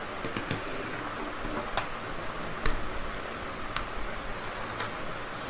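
Several sharp little clicks and taps of small plastic stationery cases being handled, roughly one a second, over a steady hiss.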